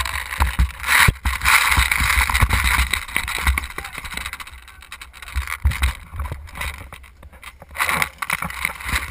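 Rustling, knocking and wind buffeting on an action camera mounted on an airsoft gun as the player moves with it. The noise is heaviest in the first half and eases off later.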